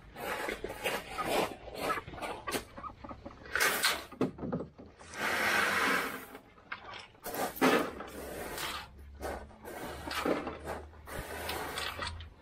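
Gravel being poured from a plastic bucket and spread by hand, stones rattling and pattering out in a series of short bursts, with one long pour about five seconds in.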